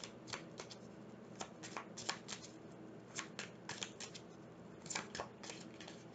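A tarot deck being shuffled by hand: many short, irregular card clicks and flicks, some in quick clusters.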